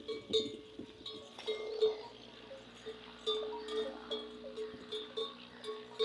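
Camels' neck bells clanking irregularly, a few strikes a second, each ringing briefly with a clear metallic tone.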